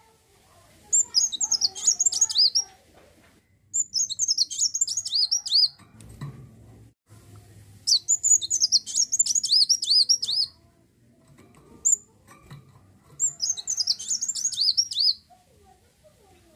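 Kolibri wulung sunbird singing in four bouts of rapid, high, twittering song of about two seconds each, separated by short pauses.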